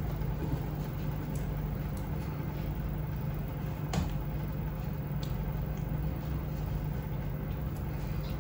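Steady low hum of room noise, with one sharp click about four seconds in.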